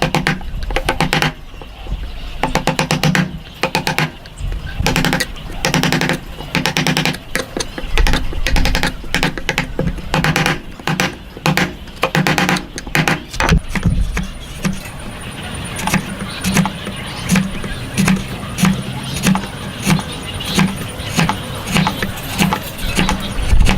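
Repeated strokes of hand tools working wood, fast and dense in the first half, then slower and evenly spaced, heard under background music.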